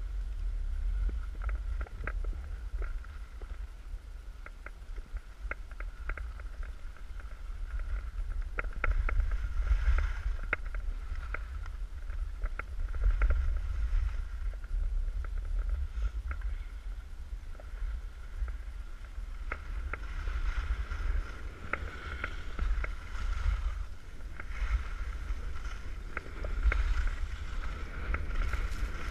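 Wind rumbling on a GoPro's microphone while skiing downhill, with the skis hissing and scraping over packed, groomed snow and many short scattered clicks.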